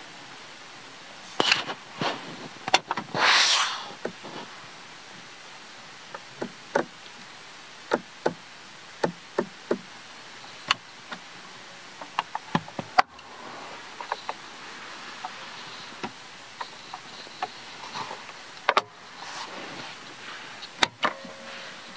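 Scattered clicks, taps and knocks from a hand working a car's interior fittings: the centre console lid, the controller and the trim panels. There is a short, louder rush of noise about three seconds in.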